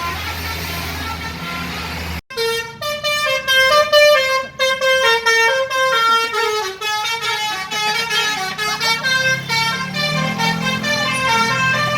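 Telolet horn on a bus: a multi-trumpet musical air horn playing a quick tune of short notes, several tones at once, over the low running of the bus engine. After a sudden break about two seconds in, the melody of rapidly changing notes runs on.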